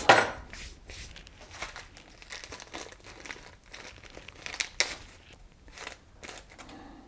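Thin plastic packaging bag crinkling in irregular rustles as it is handled and pulled open around a small steel part.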